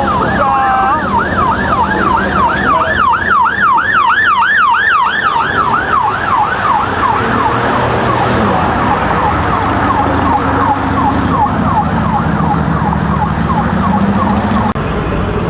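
Emergency vehicle siren in a fast yelp, its pitch sweeping up and down about three times a second over street noise. It fades in the second half and stops abruptly near the end.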